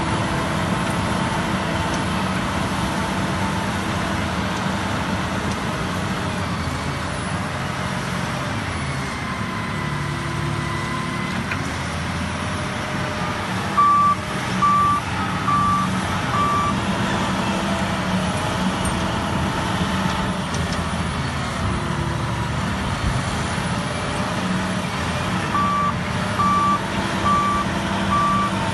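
Shantui SD20-5 bulldozer running steadily, with its reversing alarm beeping about twice a second in a spell of five beeps around the middle and again near the end.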